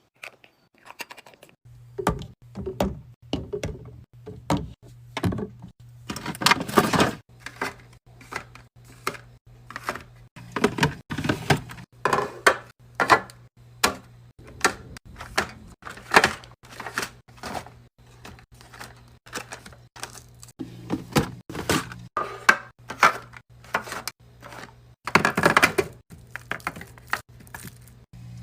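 Repeated knocks, clicks and clatters of items and containers being handled and set down while restocking, over a steady low hum.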